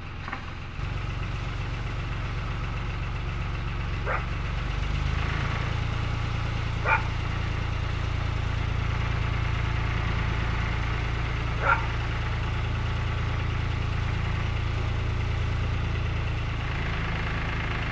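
Narrowboat engine running steadily after coming to life, picking up slightly about five seconds in. A few short, sharp sounds stand out over it, at intervals of several seconds.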